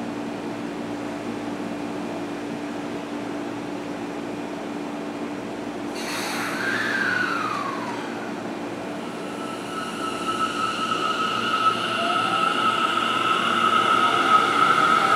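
An electric commuter train, a Tokyo Metro 10000 series, stands with a steady hum, then gives a sudden hiss with a short falling tone about six seconds in. From about nine seconds the motors' inverter whine sets in and climbs in pitch, growing louder as the train pulls away.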